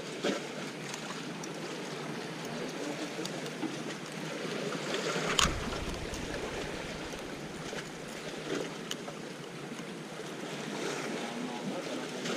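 Sea washing steadily against shore rocks, with scattered small clicks and one sharp knock about five seconds in.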